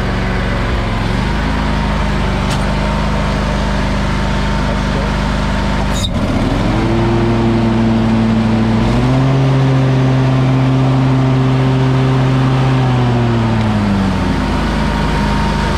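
Wright stand-on mower engine running, throttled up in steps (about a second in, then again around six and nine seconds in), held high, then throttled back down near the end. A single sharp click around six seconds in.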